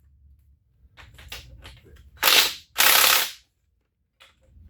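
A wrench tightening the transmission's bell-housing bolts: two short bursts of fast mechanical clatter about half a second apart, each lasting about half a second, with a few faint clicks before them.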